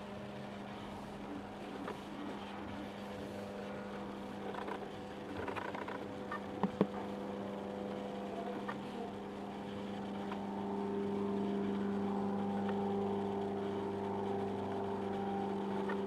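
A motor running steadily, a hum held on one pitch that grows louder about ten seconds in, with two sharp clicks a little past the middle.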